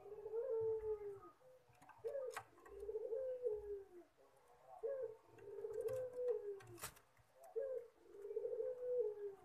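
Puter pelung (Barbary dove) cooing in display: four long, drawn-out coos, each starting with a sharp rising note and then held in a wavering, slowly falling tone, a sound likened to a person crying. Two sharp taps come in between.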